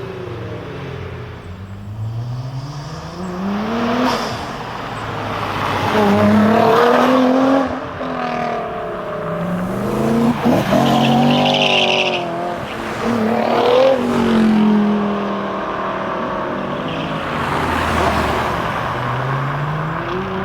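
Sports car engines accelerating hard, their pitch rising in repeated sweeps as they pull through the gears, with a sharp crack and a short high squeal about halfway through.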